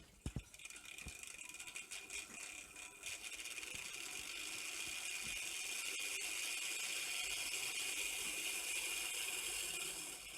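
Märklin 3000 model steam locomotive (BR 89) running, its electric motor and gears giving a steady high whir with a light rattle. It builds over the first few seconds and then holds steady, after a few sharp clicks near the start.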